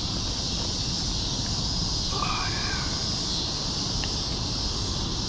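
Steady high-pitched chorus of insects, with a single short bird call about two seconds in.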